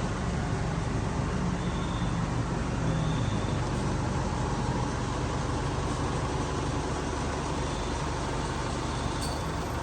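A vehicle engine running steadily, with no siren sounding. A sharp click comes near the end.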